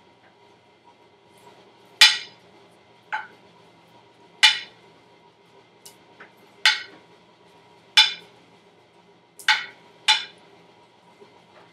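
A kitchen utensil clinking against a dish, about seven sharp knocks with a short ring, spaced irregularly a second or two apart.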